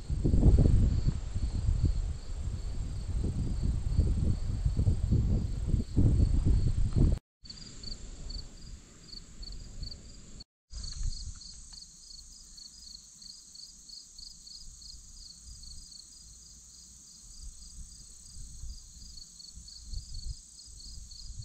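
A summer insect chorus: a high pulsed chirping at about four pulses a second over a steady high buzz. Wind rumbles on the microphone for the first several seconds. The sound drops out completely twice, briefly.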